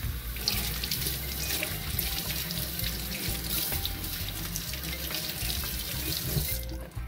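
Tap water running and splashing into a stainless steel sink as a peeled coco root is rinsed under it by hand; the water stops shortly before the end.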